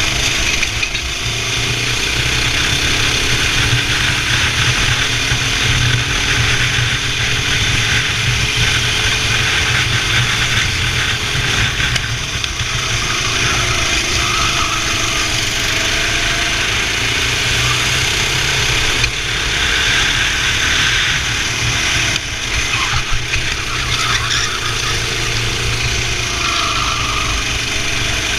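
Racing kart engine running hard, its pitch rising and falling as the kart speeds up and slows through the corners, with a steady hiss over it.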